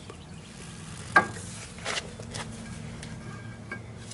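Steel axle shaft being slid into a GM 10-bolt rear axle tube, knocking against the housing: one sharp ringing clink about a second in, a softer knock soon after, then a few light ticks over a low steady hum.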